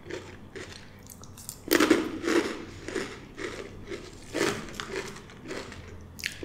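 Blue Takis rolled tortilla chips being bitten and chewed: a run of crisp crunches, loudest about two seconds in and again just past four seconds.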